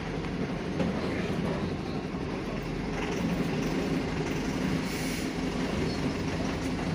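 Mercedes-Benz OF917 bus's four-cylinder turbo-diesel engine running steadily, heard from inside the driver's cab, with a brief hiss about five seconds in.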